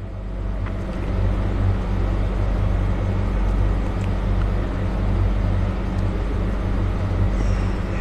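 Steady low motor rumble with a droning hum, swelling about a second in and then holding steady.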